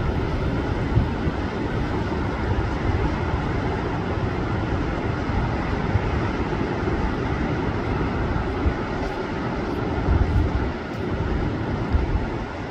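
Pacific surf rushing steadily onto the beach, with wind buffeting the microphone in uneven low rumbles that are strongest about ten seconds in.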